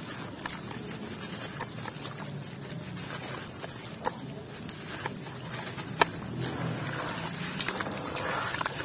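Hands crumbling a lump of dry, gritty red dirt into a basin of muddy water: soft gritty crunching and pattering of falling soil, with a few sharp cracks as pieces break. Near the end it turns to squelching and sloshing as the hands work the wet mud under the water.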